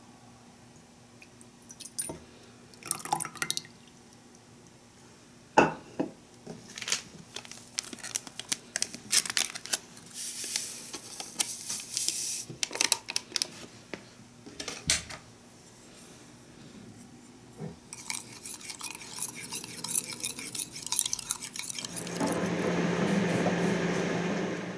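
Kitchen handling sounds: milk poured from a plastic jug into a ceramic mug, then a crinkly powder sachet torn and its powder shaken in, with a few clinks against the mug. About three seconds before the end a microwave oven starts running with a steady hum.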